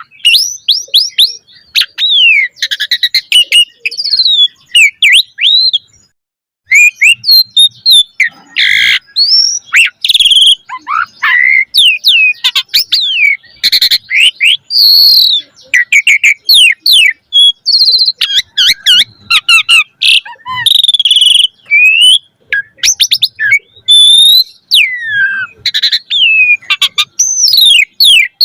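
A Javan pied starling (jalak suren) singing a long, varied song of whistled notes rising and falling in pitch, quick chirps and harsh clicky notes, delivered in rapid phrases. There is one brief pause about six seconds in.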